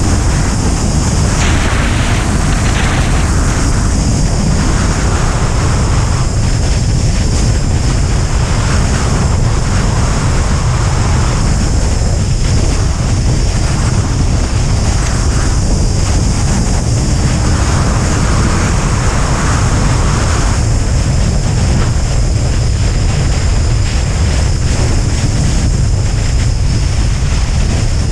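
Loud, steady rush of airflow over a wing-mounted camera's microphone on a Duo Discus glider in flight, with a deep rumble underneath and a hiss that swells and fades every few seconds.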